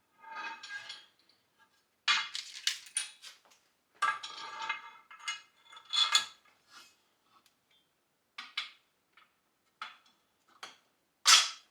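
Steel parts and bolts of a dumbbell rack clinking and rattling as they are handled and fitted together: irregular bursts of clatter, then a few scattered clicks and one sharp clink near the end.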